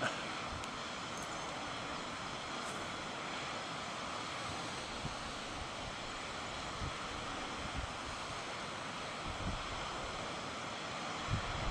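Steady wind rushing over the microphone, with a few low buffets near the end.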